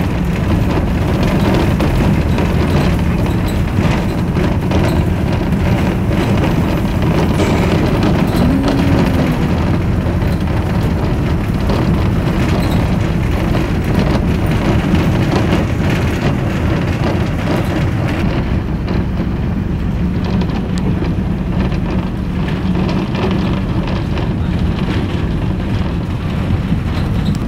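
Steady engine and road noise heard from inside the cabin of a moving vehicle, a continuous low drone.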